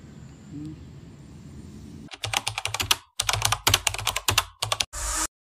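Computer keyboard typing sound effect: rapid runs of key clicks with short pauses, starting about two seconds in after faint outdoor background, and ending in a brief hiss.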